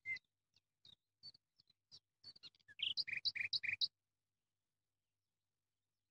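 Small bird chirping in short, high notes, ending in a quick run of about six chirps a second; the chirps stop about four seconds in.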